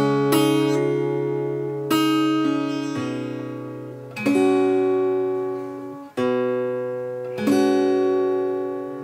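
Acoustic guitar playing a slow chord passage: five chords struck in turn, each left to ring and fade over low bass notes.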